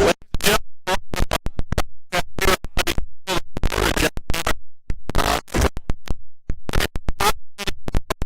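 Electronic music cut into rapid stuttering fragments with DJ-style scratching, short bursts separated by silent gaps and the bass dropped out.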